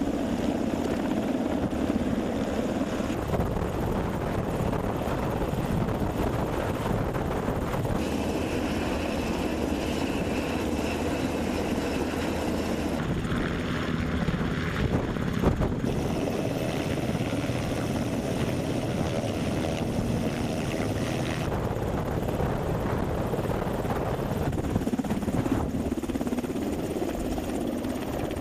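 Military helicopter hovering low overhead, its rotor and turbine noise steady and loud. The sound shifts abruptly a few times as the footage cuts between shots.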